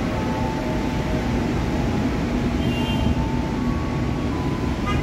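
Diesel-hauled passenger train rolling slowly through the station, a steady low rumble.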